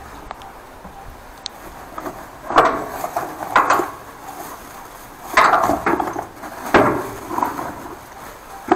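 Metal tools and parts clanking and rattling as they are rummaged through in a work truck's metal storage compartment: a run of separate clanks a second or so apart.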